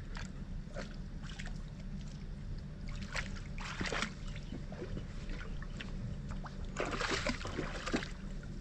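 German shepherd wading in shallow river water, splashing and sloshing, with bursts of splashing about three seconds in and again near the end, over a steady low rumble.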